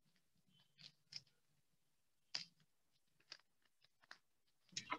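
Near silence with a few faint, short crackles of newspaper being folded and pressed flat, the clearest about two and a half seconds in.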